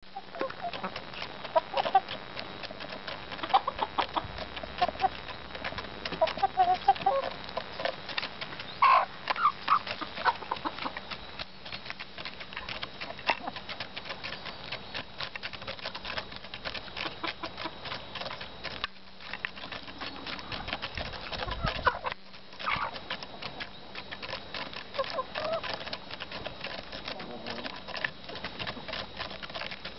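Hens pecking at food: a fast, dense patter of beak clicks throughout, with short clucks and calls over it, most often in the first third and again about two-thirds of the way in.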